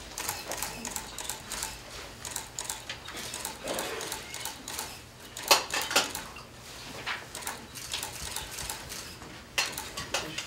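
Scattered light clicks and clinks from handling and movement, the sharpest knock about five and a half seconds in and another near the end.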